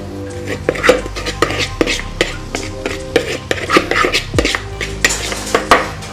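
Metal spoon knocking and scraping against a cooking pot as marinated prawns and masala are tipped in and stirred: a quick, irregular run of clinks and knocks.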